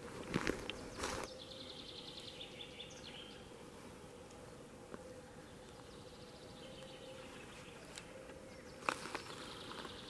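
Footsteps crunching on the forest floor for about the first second and again near the end. About a second and a half in, a songbird sings a quick trill of repeated high notes that falls slightly at its close, with a fainter trill later. A thin, steady insect whine runs underneath.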